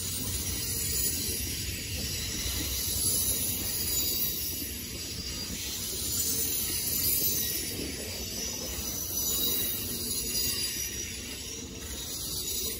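A train rolling past on the rails: a steady rumble of wheels and cars with a high hiss, the loudness swelling and easing every few seconds.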